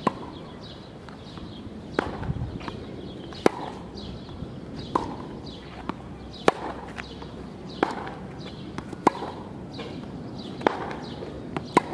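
Tennis ball being struck back and forth with rackets in a rally: sharp pops about every one and a half seconds, some louder than others.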